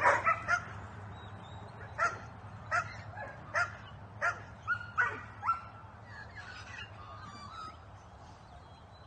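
Greyhound puppies barking and yelping excitedly: a fast run of barks at the start, then single high yelps about every two-thirds of a second that fade out around halfway.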